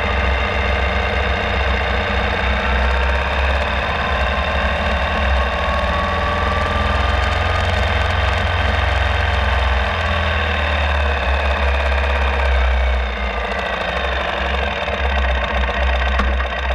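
Ural Classic sidecar motorcycle's air-cooled flat-twin engine running under way. Its note climbs slowly, then falls away about two-thirds through as the bike eases off.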